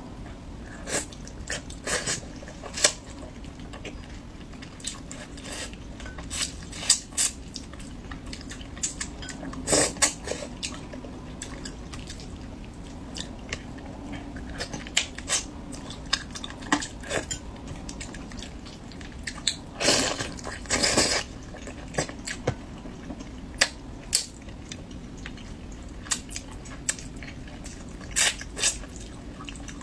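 Close-miked eating of fish curry and noodles: wet mouth sounds of chewing, with many short sharp clicks scattered throughout and two longer, louder bursts about ten and twenty seconds in.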